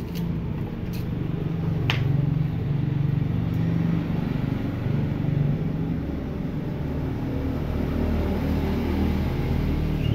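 Low, steady motor-vehicle engine rumble, its pitch shifting lower about six seconds in, with a short sharp click about two seconds in.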